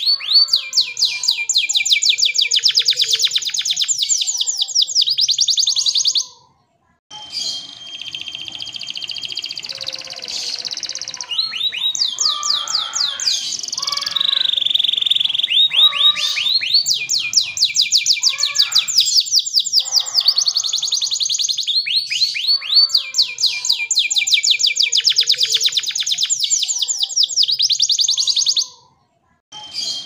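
Domestic canary singing long, rapid rolling trills of fast repeated high notes, shifting between different rolls. The song stops briefly about six seconds in and again near the end.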